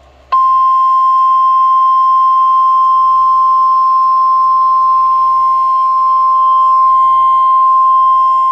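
NOAA Weather Radio 1050 Hz warning alarm tone: one steady, loud, unbroken tone starting about a third of a second in. It is the signal that a warning broadcast follows.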